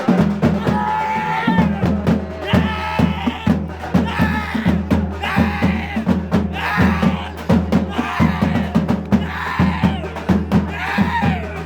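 Music with fast, steady drumming and a melody that comes in short repeated phrases.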